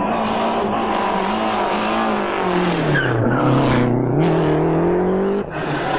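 A Group A rally car's engine running hard on a tarmac stage. Its pitch falls as the car slows for a corner about two and a half seconds in, then rises again as it accelerates out. The sound breaks off briefly near the end, then picks up again.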